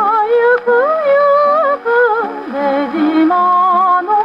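Instrumental interlude of a 1947 Columbia Japanese popular song, its orchestra playing a melody with vibrato over accompaniment chords, reproduced from a 78 rpm shellac record on an acoustic Victor Victrola gramophone. The sound is narrow, with little treble.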